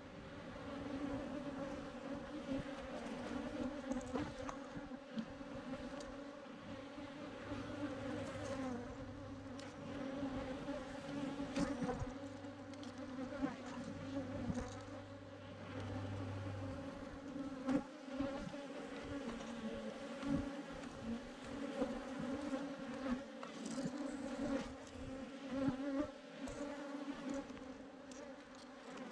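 Dense buzzing of a large swarm of Africanized honey bees, a steady hum with scattered light clicks and knocks.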